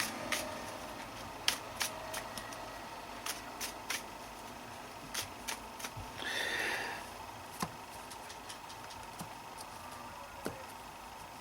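Trading cards being handled on a tabletop: scattered light clicks and taps as cards are set down and moved, with a brief rustle about six and a half seconds in, over a steady low room hum.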